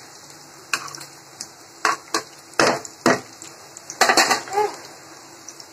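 Metal spatula stirring in a kadhai of chopped onions and peanuts frying in oil, knocking and scraping against the pan in a string of sharp, uneven clinks.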